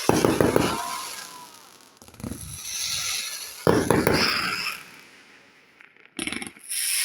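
Aerial fireworks bursting overhead: four sudden booms a second or two apart, each trailing off in a crackling hiss.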